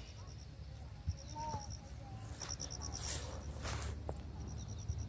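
Crickets chirping in short, rapid trills of evenly spaced high-pitched pulses, recurring every second or two, over a low rumble of wind on the microphone. A brief rustle comes about three seconds in.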